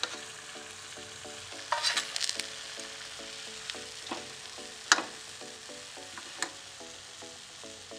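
Hot oil sizzling steadily as gram-flour-battered capsicum fritters deep-fry in a kadhai. A steel slotted spoon clinks and scrapes against the pan several times: a short cluster about two seconds in, a sharp knock about five seconds in, and another near six and a half seconds.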